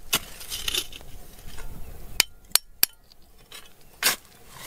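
Sharp metallic clinks of a metal digging tool striking rock: five separate strikes, one just after the start, three close together past the middle, and one near the end.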